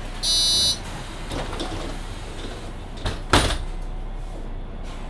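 Door-closing warning beep on a Mercedes-Benz Citaro C2 hybrid city bus, its last half-second tone near the start, then the passenger doors shutting with a click and a sharp thud a little over three seconds in.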